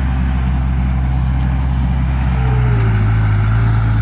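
Compact construction machine's engine running steadily under the operator's control, its pitch rising a little about two-thirds of the way through.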